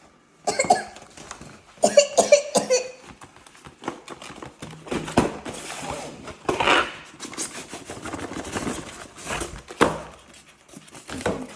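Packaging and box contents being handled: rustling and tapping with many short clicks, after a couple of short vocal sounds near the start.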